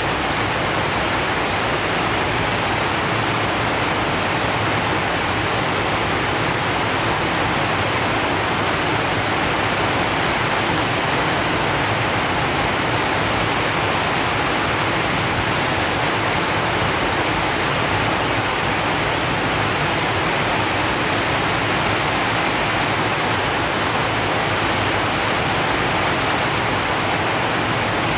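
Heavy rain falling on a zinc sheet roof: a steady, dense hiss with no separate drops standing out.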